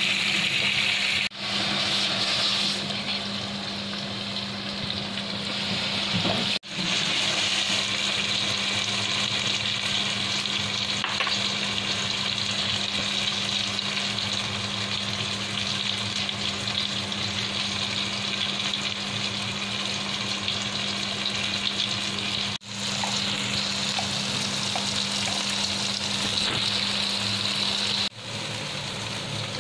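Onions, tomatoes and chicken in chili paste frying in an aluminium wok: a steady sizzle, with a spatula stirring and a steady low hum underneath. The sizzle cuts out briefly four times.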